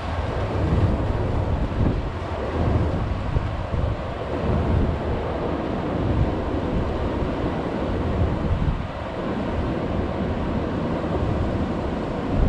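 Wind buffeting the microphone in uneven gusts over the steady wash of surf breaking on the beach.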